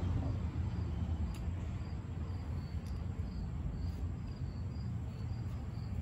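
A cricket chirping in short, evenly repeated chirps, about three a second, over a low steady rumble.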